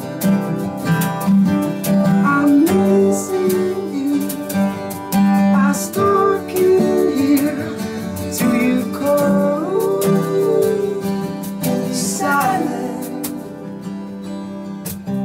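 Live acoustic music: two acoustic guitars strummed and picked, with a male voice singing the melody over them.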